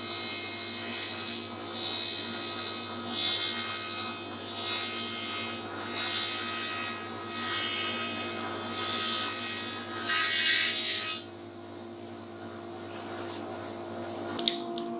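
Small benchtop thicknesser planing thin resawn boards down to 3 mm: a steady motor hum under a rough cutting noise that swells and fades every second or so. The cutting is loudest about ten seconds in, then stops suddenly, leaving the machine humming.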